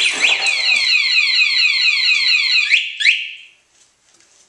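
Winomo motorcycle alarm siren going off, set off by disturbing the armed bike. It sounds a fast, high warble of falling pitch sweeps, about eight a second, then gives one last rising whoop and stops about three seconds in.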